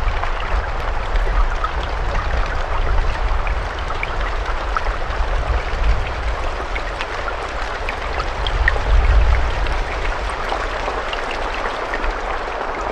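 Steady rain falling: an even hiss dotted with small ticks of individual drops, over a low, uneven rumble.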